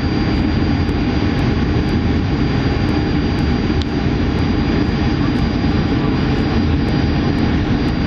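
Jet airliner's engines and airflow heard from inside the passenger cabin during descent on final approach: a steady, even rushing drone with a thin high whine held throughout, and one tiny tick about four seconds in.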